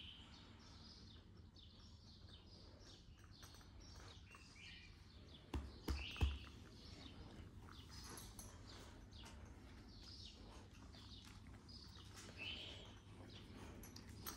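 Faint birds chirping now and then over a low steady background hum, with two short dull knocks close to the microphone about six seconds in.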